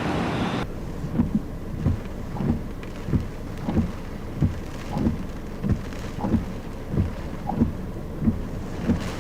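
Muffled low thumps repeating at a steady pace, about three every two seconds, over a low rumble.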